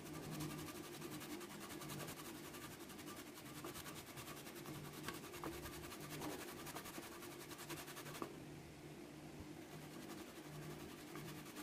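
Quiet room tone: a steady low electrical hum with a few faint light clicks about halfway through.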